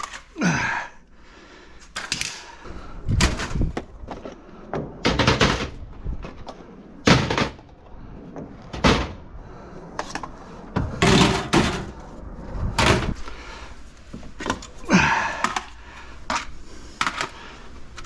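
Irregular thunks and clanks of metal parts being handled and knocked about, about a dozen sharp hits at uneven intervals, some with a brief ring, as a power supply is stripped down for scrap.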